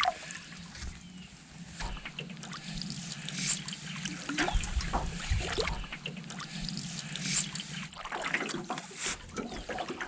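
Canoe paddle strokes splashing and water trickling off the blade, in irregular dips and drips.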